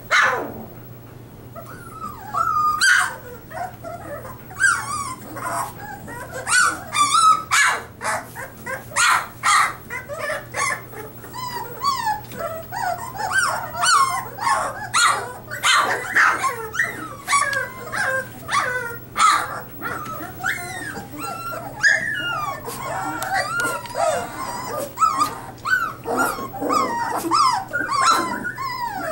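A litter of 23-day-old puppies whimpering, yipping and squealing. Many short cries overlap one another without a break.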